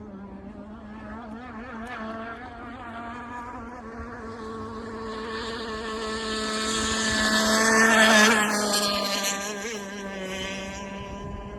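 Zippkits SLR Missile Thunderboat RC hydroplane running fast across the water, its two-stroke gas engine buzzing at a steady high pitch. It grows louder as the boat passes closest, about eight seconds in, then fades as it runs away.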